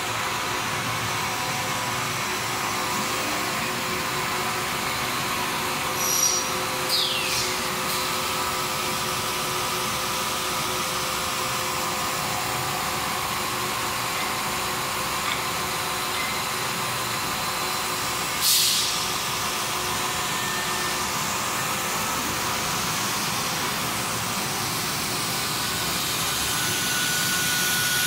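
Steady drone of a running PVC profile extrusion line, extruders and their barrel cooling fans, with faint steady tones in it. A few brief sharp noises cut through around six, seven and eighteen seconds in.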